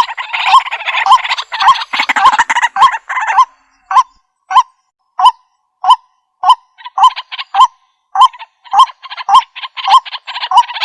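White-breasted waterhen calling: a run of evenly repeated short notes, about one and a half a second, with a harsh chattering layer over them for the first three seconds and again from about eight seconds in.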